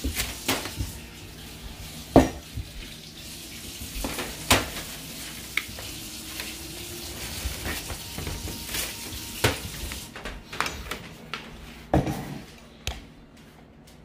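Scattered clinks and knocks of kitchen dishes over a steady hiss that stops about ten seconds in.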